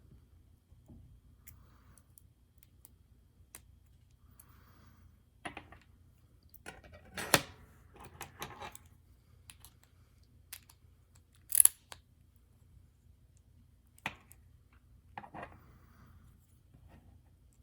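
Scattered metallic clicks and clinks of small lock parts being handled as an Abus euro profile cylinder is taken apart. A louder clink comes about seven seconds in and a sharp, high one near eleven and a half seconds.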